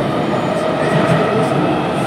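Inside a C751B metro car running between stations: a steady rumble of wheels on rail, with a faint whine of steady tones from the Fuji Electric IGBT-VVVF traction system.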